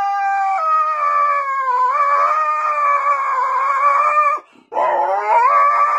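Husky howling: one long, wavering howl, a short break just after four seconds in, then a second howl that rises in pitch.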